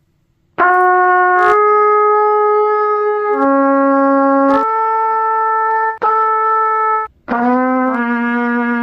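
Trumpet playing a slow phrase of long held notes at several pitches, with a short pause for breath about seven seconds in. It is played by a trumpeter coming back after two months without practice.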